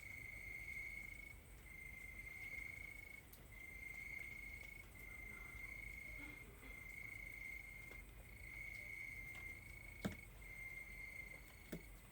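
Crickets chirping in a steady high trill that breaks into phrases about a second and a half long, with short gaps between them. Two short knocks come near the end.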